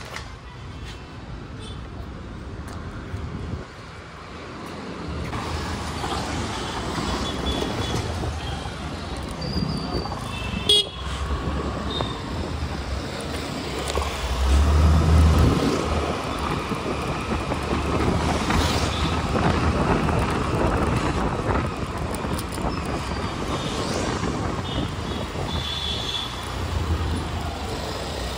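City street traffic: motor vehicles running and passing, with horns tooting now and then. The noise grows louder about five seconds in, and there is a single sharp knock near the middle.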